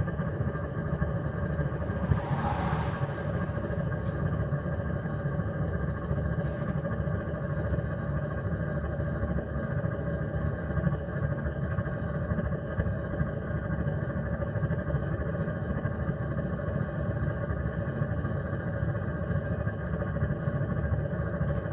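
GE water heater rumbling steadily, a low churning rumble with a faint steady hum above it. There is a brief hiss about two seconds in.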